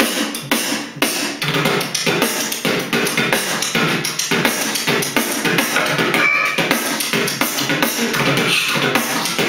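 Vocal beatboxing in a drum-and-bass style: a fast, dense beat of kick, snare and hi-hat sounds made with the mouth, mixed with pitched bass tones.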